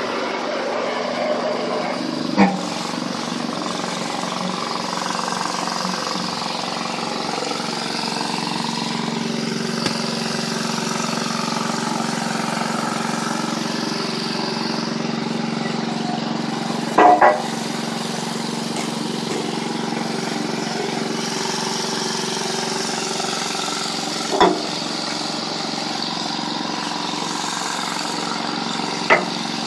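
A machine running with a steady hum, broken by a few sharp knocks: one early on, two close together about halfway, and one more later.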